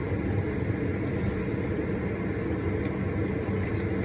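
Car air-conditioning blower running on high inside the cabin, a steady rushing noise.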